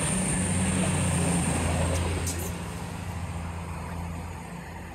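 Diesel train engine running with a steady low drone, gradually fading.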